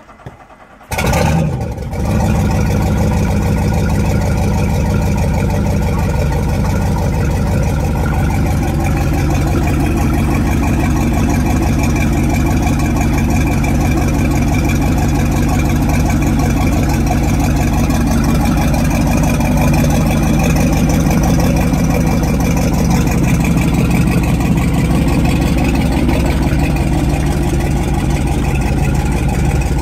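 Volvo Penta 350 cubic-inch V8 sterndrive engine cold-starting through a Corsa through-hull exhaust. It fires and catches about a second in, then settles into a loud, steady idle.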